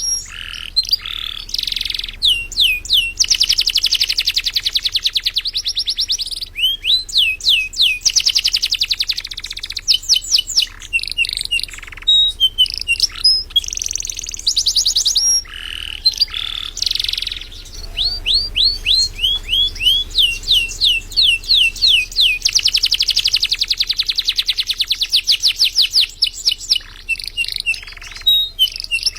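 Domestic canary singing non-stop: a long, continuous song of fast trills and runs of quick downward-sweeping high notes, with only short breaks.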